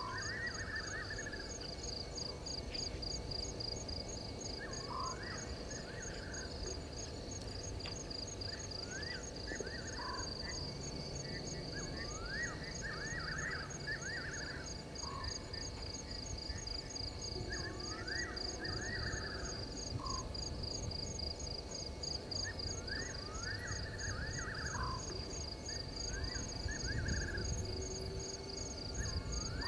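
Night chorus at a waterhole: insects keep up a steady, fast-pulsing high trill, and frogs give short rising calls in clusters every two to three seconds. A low rumble runs underneath.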